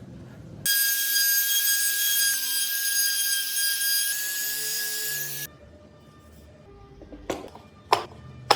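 High-speed power tool working a block of cypress wood, its motor giving a steady high-pitched whine for about five seconds before cutting off abruptly. It is followed by quieter handling with a few sharp knocks near the end.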